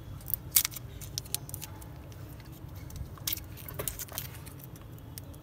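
Plastic wrappers of M-Seal epoxy putty sticks crinkling and tearing as they are opened by hand: a string of sharp crackles and ticks, loudest about half a second in and again around three seconds in, over a faint low rumble.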